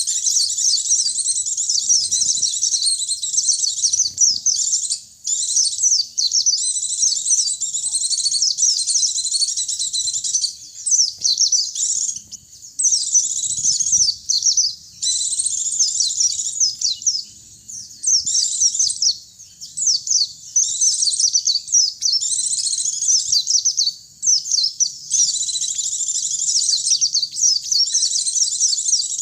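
Pleci (white-eye) and sogon birds singing: fast, high twittering in phrases of one to three seconds with brief pauses between them.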